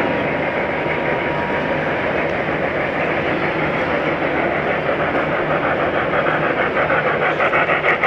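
Model trains running on a layout: a steady rumbling hum of wheels and motors, with a rhythmic steam-engine chuffing from a model steam locomotive's sound effects that comes in about halfway through and grows louder near the end.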